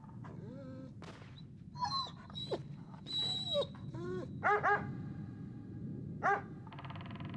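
A large black dog whining in rising and falling cries, breaking into short sharp yelps about four and a half and six seconds in.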